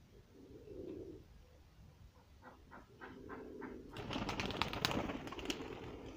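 Domestic pigeons cooing low about a second in, then a few soft clicks, and from about four seconds in a louder crackling rustle.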